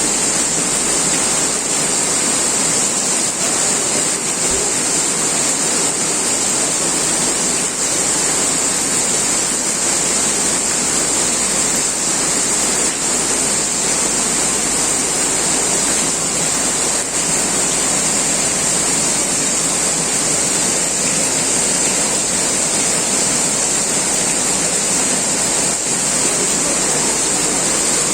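Rain pouring down hard: a loud, steady hiss.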